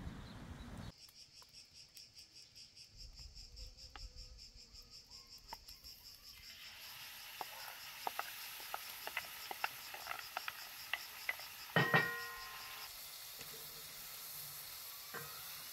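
Crickets chirping in a fast high pulse throughout. About a third of the way in, minced meat starts sizzling in a hot frying pan and is stirred with a wooden spoon, making scraping clicks. Near the end comes one loud knock of the spoon against the pan that rings briefly.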